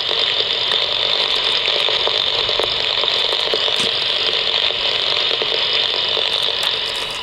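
Steady static hiss from a NOAA Weather Radio broadcast, its voice message broken off partway through: the station is malfunctioning.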